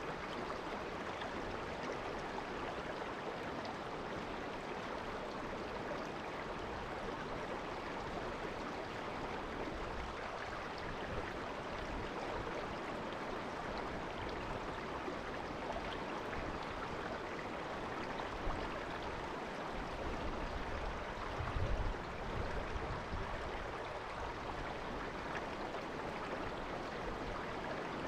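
Naka River water murmuring steadily, an even rushing babble of a shallow river. A few seconds of low rumble come in about two-thirds of the way through.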